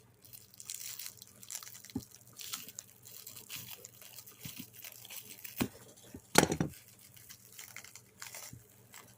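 Packaging being handled and unwrapped: irregular rustling and crinkling with scattered light clicks, and one louder knock about six seconds in.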